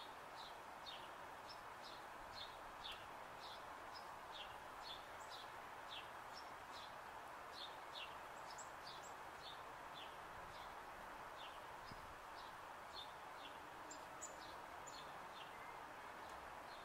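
Faint chirping of small birds: short falling chirps, roughly two a second, over a steady faint background noise.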